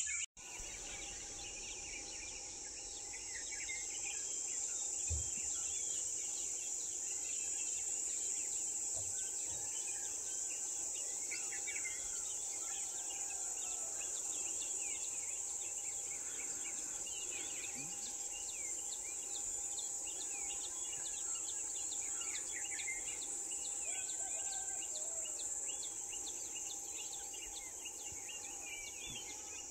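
Dawn countryside ambience: a steady high-pitched insect chorus with many birds chirping and calling over it. A faint steady hum runs underneath.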